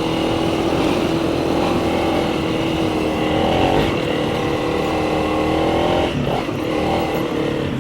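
Honda CRF300 Rally's single-cylinder engine running steadily under way, its note rising slightly then easing, with a brief dip and waver about six seconds in.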